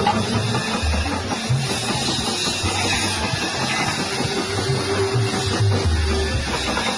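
Background music with drums and a steady beat of changing bass notes.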